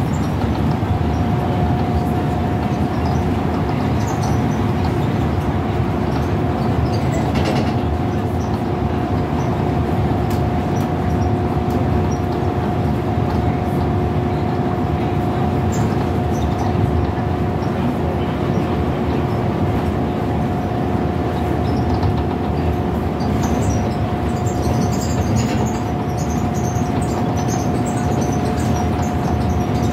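Scania L94UB Wright Solar single-deck bus cruising at a steady speed, heard from inside near the front doors: steady engine and driveline drone with road and tyre noise, and a steady high whine over it.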